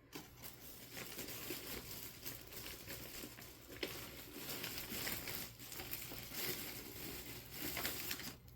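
Packaging crinkling and rustling continuously as the parts of a vinyl reborn doll kit are handled and unwrapped, stopping near the end.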